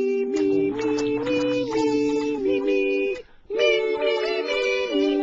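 Background music of held, slowly changing chords, with a brief break a little over three seconds in.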